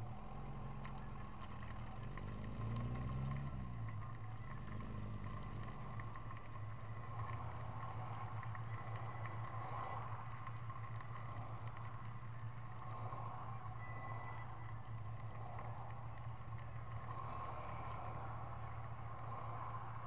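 Road traffic heard through a camera fixed to the outside of a car: a steady low engine hum, with a passing vehicle's engine rising and then falling in pitch in the first few seconds.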